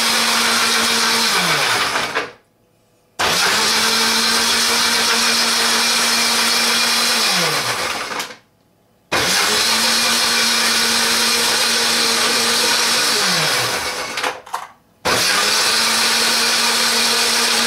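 Ladyship countertop blender motor blending a thick smoothie in runs of about six seconds. Each run ends with the motor winding down in pitch to a brief stop before it starts again at full speed.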